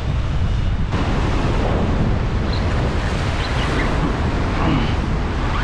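Steady wind buffeting the microphone over waves washing and breaking against a rocky shoreline.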